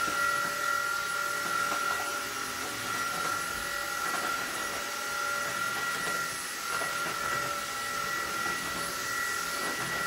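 Umeda U-Stick cordless stick vacuum cleaner running steadily with a high motor whine as its powered brush head is pushed over a tiled floor.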